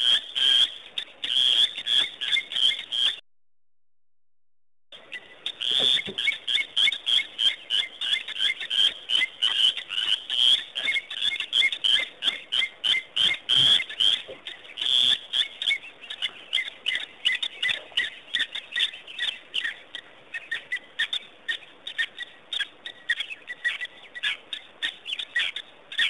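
Frogs at a waterhole calling in fast, repeated pulses, many calls overlapping. The sound cuts out completely for almost two seconds a few seconds in, where the live feed stalls.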